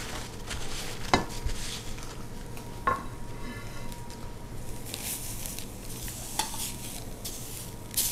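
Tuna loins sizzling as they sear in a very hot stainless-steel pan, the high heat putting a crust on the outside. A few sharp clicks sound over the sizzle.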